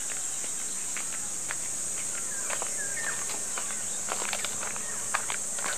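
Insects shrilling in a steady high-pitched drone. A bird chirps briefly a few times, and footsteps crunch irregularly on dry ground.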